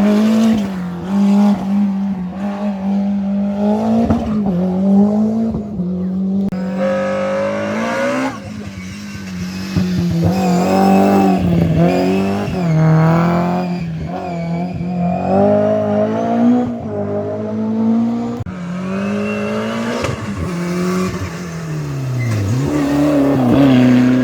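Rally car engine at full load on a stage, its revs rising and falling again and again through gear changes and braking.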